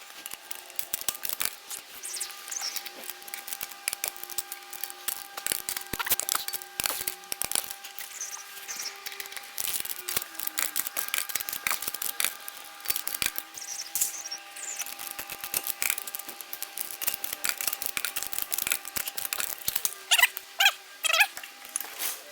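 Hand-tool work on a car: a dense, irregular run of clicks, clinks and knocks, with a faint steady hum underneath and a few short high squeaks.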